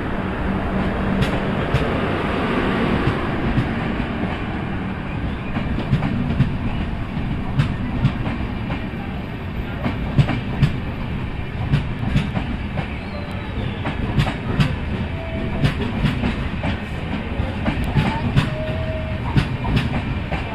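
Passenger train's LHB coaches rolling past, their wheels clicking over rail joints over a steady rumble.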